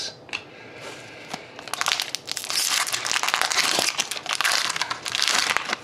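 A few light clicks, then a trading card pack's foil wrapper being torn open and crinkled for about four seconds as the cards are pulled out.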